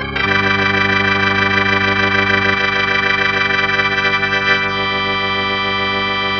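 Dexibell Combo J7 digital organ playing a Hammond-style tonewheel sound through a simulated rotary speaker. It holds one full sustained chord, with the bass note shifting about halfway through, as the closing chord of the piece.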